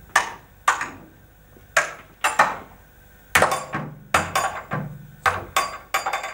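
A dozen or so sharp metallic knocks and clangs at a steam locomotive's smokebox door as it is worked on, coming irregularly, some ringing briefly.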